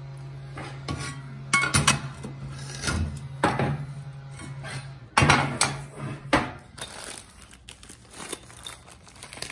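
Steel plates and frame of a bandsaw table being handled and set down on a steel workbench, clanking and ringing several times. A steady low hum runs under the first half and fades about five seconds in.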